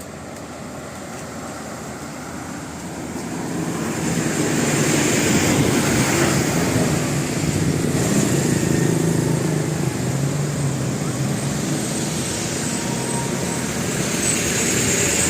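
Heavy vehicle engine and road noise, swelling about four seconds in and staying loud, as a large vehicle, likely a bus, passes close by. No horn tune is heard.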